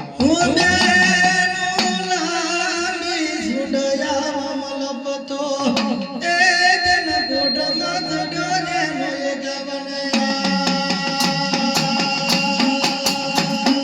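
Gujarati dakla devotional song performed live: a singer's wavering, ornamented voice over a steady drone, with a short break partway through. About ten seconds in, drums join with a fast, dense beat.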